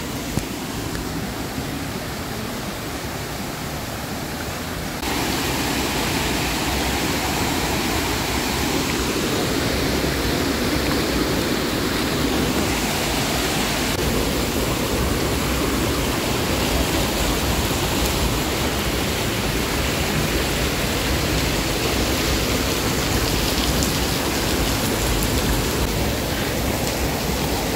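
Steady rush of water from a monsoon waterfall. It jumps up in loudness about five seconds in and stays even after that.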